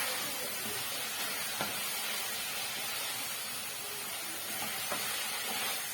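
Pork and onions sizzling steadily in a frying pan, with a couple of light clicks.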